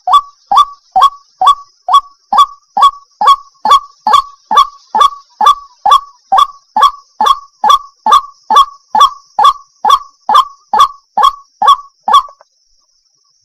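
Waterhen calling, a fast steady run of short, loud notes, each dropping in pitch, a little over two a second. The calls stop about a second before the end.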